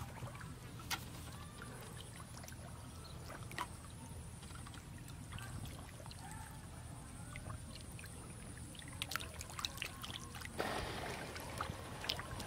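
Fish splashing and wriggling through a shallow trickle of muddy running water, with scattered small splashes over a steady low rumble. The splashing grows denser and louder near the end.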